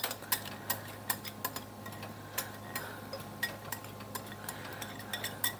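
A whisk knocking and scraping against a glass mixing bowl and a saucepan, making light irregular ticks a few times a second, as tempered egg yolks are poured into hot custard base. A low steady hum runs under it.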